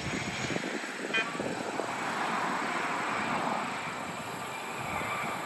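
Aircraft noise: a steady, broad rush that swells about two seconds in and eases toward the end.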